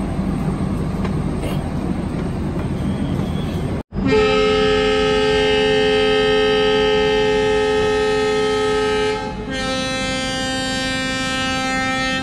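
Steady low rumble, then a train's air horn sounding two long blasts: a chord of several steady tones, the first blast about five seconds long, the second about three seconds after a short break.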